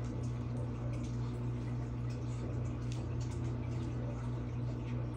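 Steady low hum with faint scattered ticks: indoor room tone.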